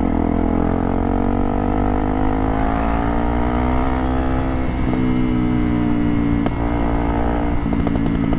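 Motorcycle engine heard from on board, accelerating through the gears. Its pitch climbs, drops at a gear change about five seconds in, climbs again, and drops once more near the end.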